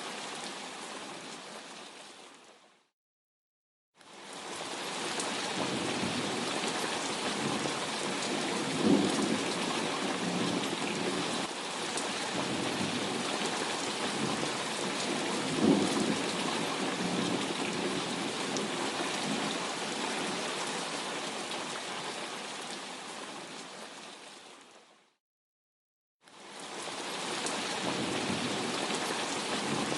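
Steady heavy rain, fading out to silence and back in twice where the recording loops. There are two short, low claps of thunder about a third and a half of the way through.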